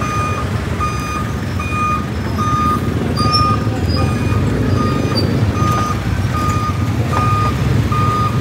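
A vehicle's reversing alarm beeping steadily, one short beep about every half second, over the low rumble of an engine.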